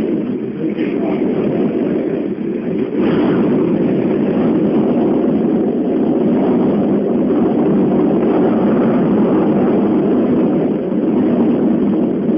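Strong wind rushing steadily against a ski gondola cabin, heard from inside, with a couple of faint knocks about one and three seconds in.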